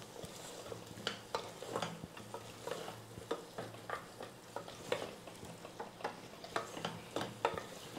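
Wooden spatula stirring goat trotters through hot oil and masala in a stainless steel pressure cooker: irregular scrapes and knocks against the pot, roughly two a second, over a light sizzle.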